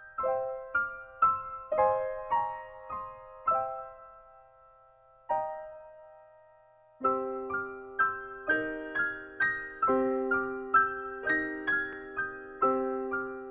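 Background piano music: notes struck one after another, a held note fading away for a couple of seconds, then fuller chords with a lower part coming in about halfway through.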